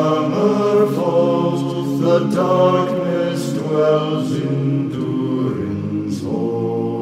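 A low male vocal ensemble singing a slow, chant-like a cappella song in long held chords.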